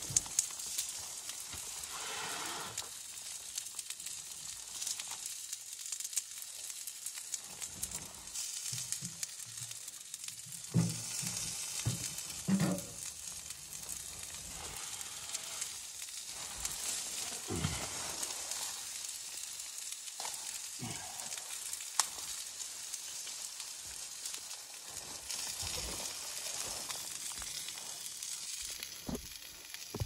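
Wood fire burning in a small portable tent stove with its door open: a steady hiss with scattered crackles and a sharp pop about three-quarters of the way through, plus a few soft knocks.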